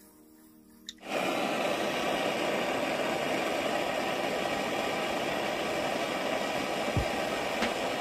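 Handheld gas blowtorch burning with a steady hiss that starts about a second in after a click, its flame heating the rusted nuts on an exhaust downpipe flange to free them.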